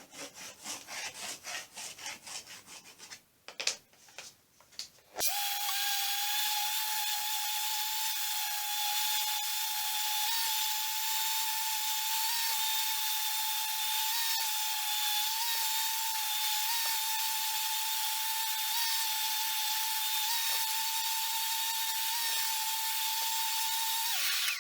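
Rotex random-orbit sander with 150-grit paper sanding a pine end-grain board. About five seconds in it starts with a steady whine, dipping a little in pitch now and then as it is pressed into the wood, and it cuts off near the end. Before it starts there is a quick rubbing.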